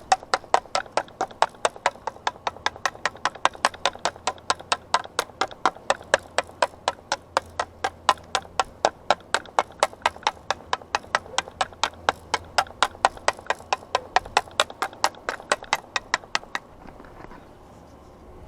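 A long, steady run of sharp, evenly spaced clicks or taps, about three or four a second, that stops abruptly near the end.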